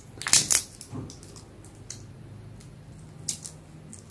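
Raw shrimp being peeled by gloved hands: a few short crackles and squishes as the shell pulls away from the flesh, most of them in the first second and one more near the end.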